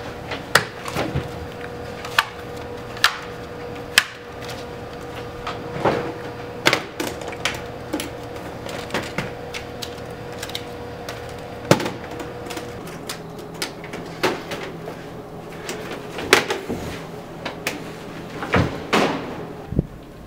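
Clatter and knocks of a cash register's plastic coin tray and a metal cash box being handled on a countertop: sharp clicks and thuds at irregular intervals throughout. A steady tone runs underneath and stops about thirteen seconds in.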